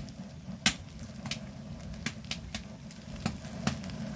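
Wood fire in a gas-cylinder stove crackling, with irregular sharp pops over a low steady hiss and rumble; meat grills on a flat stone set on the stove.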